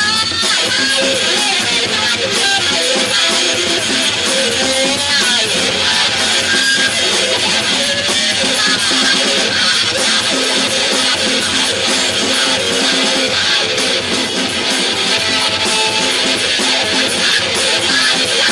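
Guitar played loud and continuously, a dense, noisy wash of strummed and sliding, wavering notes.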